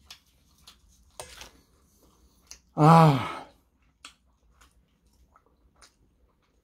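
A man's voiced sigh, falling in pitch, about three seconds in, amid faint scattered clicks and smacks of eating.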